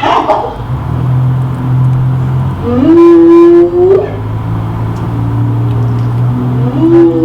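A recording of a wild animal's call played back: two long pitched calls, each about a second long and bending upward at the end, over a steady low hum.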